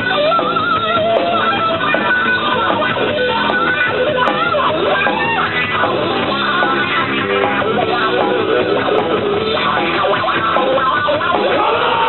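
Punk rock band playing live and loud: distorted electric guitar over bass and drums, with a line that bends and wavers in pitch.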